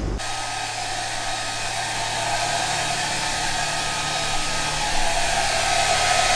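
Hand-held hair dryer running steadily at one speed, a constant blowing hiss with a thin steady whine.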